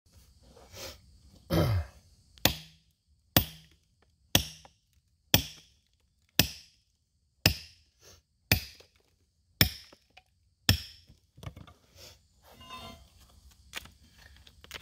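Small sledgehammer striking a rock face: nine sharp blows about a second apart, each with a short ring, followed by fainter knocks and scraping of loosened rock.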